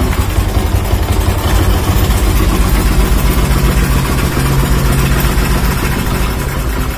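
Single-cylinder underbone motorcycle engine idling steadily, without the ticking of the magneto rotor striking the iron post beside it: the rub is cured by a replacement post.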